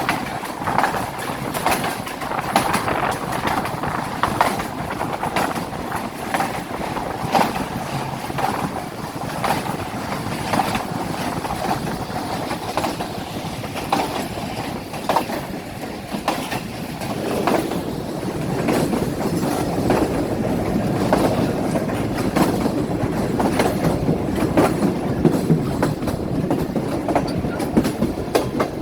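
Awam Express passenger train running along the track: a steady rumble with frequent clicks of the wheels over rail joints.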